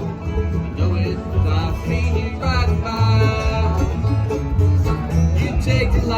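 Bluegrass band playing live, banjo and guitar picking over a bass line that steps between low notes in an even beat.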